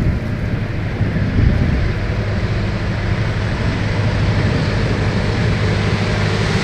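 Diesel freight locomotive of the GM-EMD type running under power inside a railway tunnel as it approaches the mouth: a steady low engine drone with a strong low note, growing a little brighter near the end.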